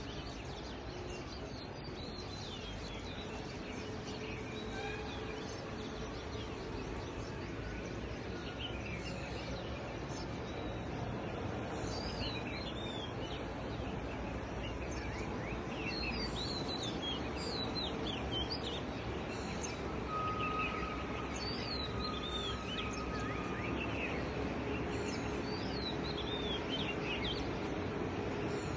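Many birds chirping and calling over a steady background rush of outdoor noise, with one held whistle-like tone lasting a few seconds about two-thirds of the way through.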